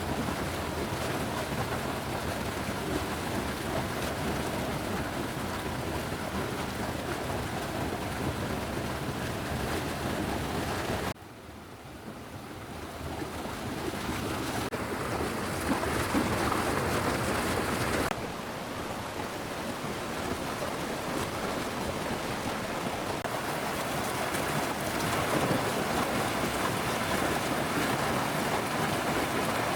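Steady outdoor water noise, an even hiss across the whole range. It drops abruptly about eleven seconds in, swells back up over the next few seconds, and changes character again about eighteen seconds in.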